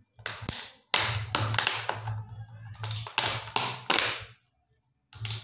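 Thin clear plastic lid of a takeout food tray crackling and crinkling as it is pried off, in a run of bursts with a short pause, then again near the end.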